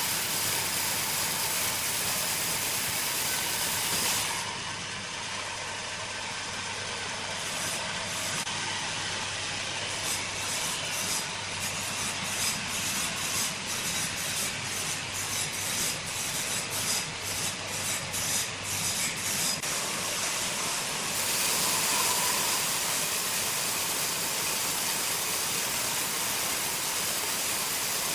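Sawmill machinery running: a steady mechanical hiss with a low hum. In the middle comes a stretch of irregular knocks, about one or two a second.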